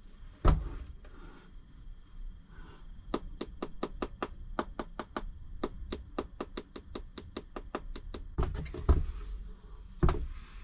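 Fingertip tapping quickly and lightly across the burr walnut veneer of a Victorian Canterbury top, about six taps a second for some five seconds, sounding out where the veneer has lifted. A single knock of the wooden board being handled comes about half a second in, and another comes near the end.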